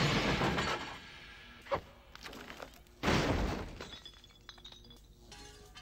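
Dishes and glassware smashing. A crash dies away in the first second and a lone clink follows. About three seconds in comes another sudden crash of breaking glass that fades over a second or so.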